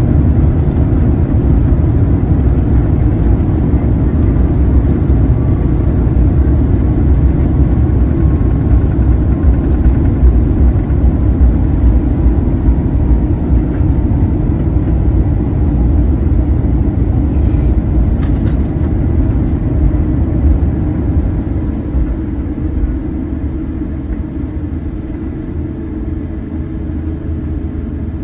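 Airbus A350-900 landing rollout heard from a window seat by the wing: a loud, steady rumble of the Rolls-Royce Trent XWB engines and the wheels on the runway. It eases off over the last several seconds as the aircraft slows.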